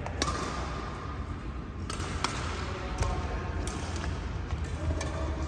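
Badminton rally: a series of sharp cracks of rackets striking a feather shuttlecock, roughly one every second, over a steady low hum.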